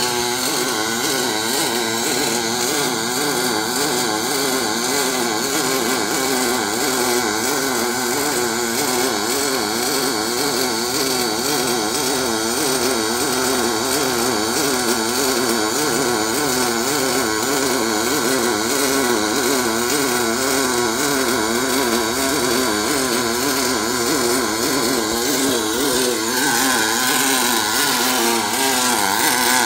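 Pulsed MIG welding arc on 5052 aluminum plate, from a Miller XMT304 with an Optima pulse box feeding 0.047 in 5356 wire in pure argon. It gives a steady, continuous buzz whose pitch wavers up and down a few times a second.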